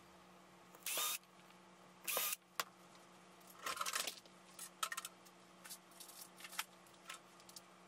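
Light handling noises as a crossover board is fitted into a wooden speaker cabinet: two short scrapes about one and two seconds in, then scattered small clicks and taps, over a faint steady hum.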